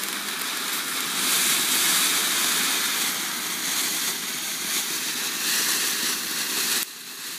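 Ground fountain firework spraying sparks with a steady rushing hiss, loudest about a second or two in, then dropping suddenly to a quieter hiss near the end.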